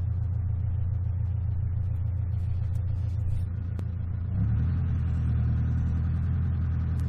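An engine running steadily at low speed, then picking up revs about four seconds in and holding the higher speed. A few faint clicks can be heard over it.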